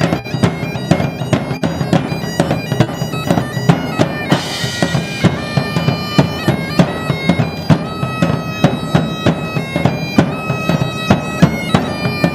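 Bagpipe and drum music: pipes playing a tune over a steady drone, with a regular drum beat.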